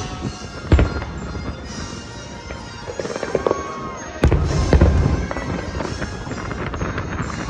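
Fireworks bursting while the show's music plays: a sharp boom about a second in, then a second, heavier boom about four seconds in that rumbles on for about a second.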